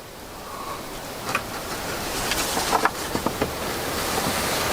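Rushing noise that grows steadily louder, with a few light clicks and taps in the middle.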